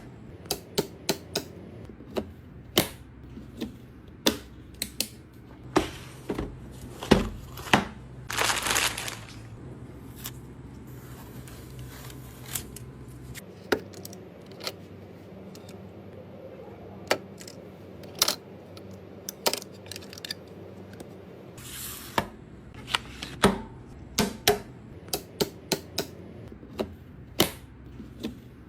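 Irregular sharp clicks and clacks of computer parts being handled and fitted together, with a brief rustle about eight seconds in and a fainter one near twenty-two seconds.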